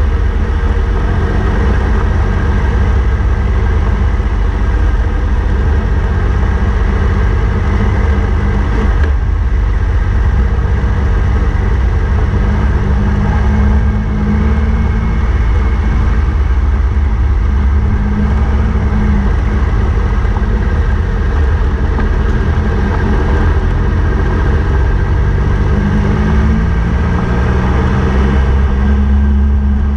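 A motorcycle riding a gravel road at a steady, moderate pace: the engine runs with its pitch rising and falling a little a few times as the throttle changes, over a constant low rumble of wind and tyres on the loose surface.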